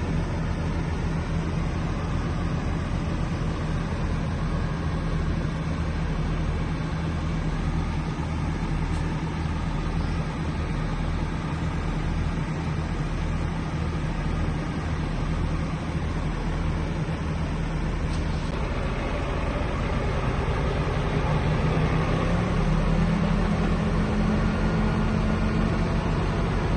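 Heavy diesel engine of earthmoving machinery running steadily with a low throb. About twenty seconds in it revs up, rising in pitch and getting louder.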